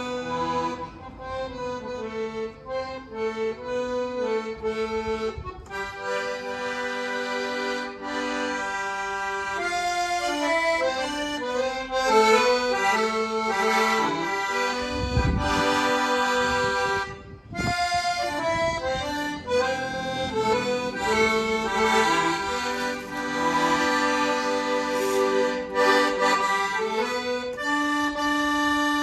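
Accordion playing a lively tune, a moving melody over held bass and chord notes, with a brief low thump about halfway through.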